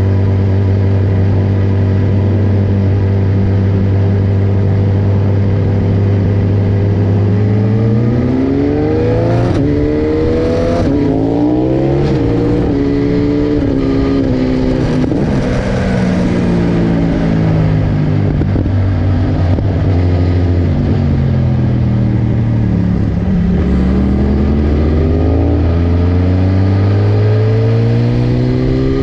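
BMW S1000RR's inline-four engine heard on board. It holds a steady note for about eight seconds, then revs up through several quick upshifts, falls in pitch as the bike slows with downshifts, and accelerates again near the end.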